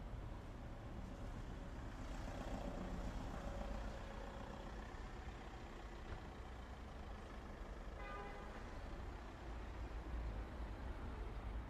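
Quiet-street ambience: a steady low rumble of distant traffic, with a vehicle passing about two to four seconds in and a brief pitched tone about eight seconds in.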